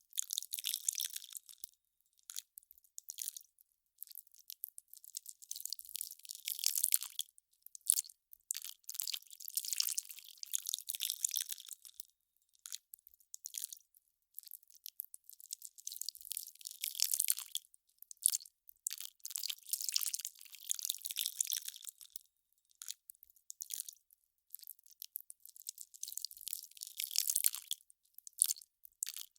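Melting ice crackling: thin, high-pitched clusters of tiny cracks and pops that come and go irregularly, with brief silences between them.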